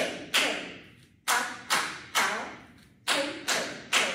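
Kathak tatkar footwork: bare feet stamping flat on a wooden floor in groups of three, each stamp ringing briefly, with a new group of three about every two seconds. The drill is for getting a clear, full tapping sound from the feet.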